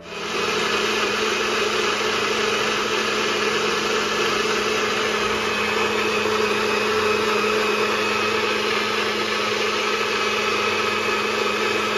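NutriBullet personal blender motor starting abruptly as the cup is pressed onto the base, then running at a steady whir while the blade purées fruit, kale and coconut water into a smoothie.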